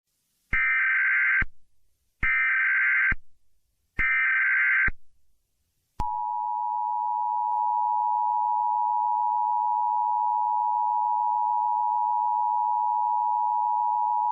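Emergency Alert System alert tones: three short, identical bursts of SAME header data, each about a second long, then the steady two-tone EAS attention signal. The attention signal begins about six seconds in and holds for about eight seconds.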